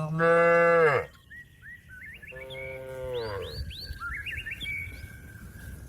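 A cow mooing twice: a loud moo of about a second at the start, then a quieter, longer moo about two seconds later, calling out to its herd-mates. Small birds chirp briefly between and after the calls.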